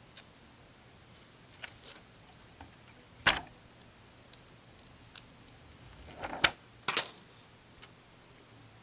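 Scattered light clicks and taps of hands handling a phone and its small adhesive port covers on a work surface, with the sharpest click about three seconds in and another two close together around six and a half to seven seconds.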